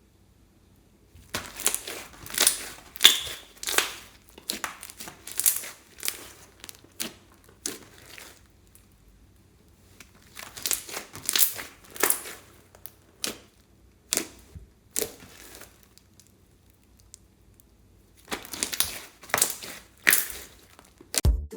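Slime being squeezed and pressed by hand, in clusters of short noisy bursts with quiet pauses between.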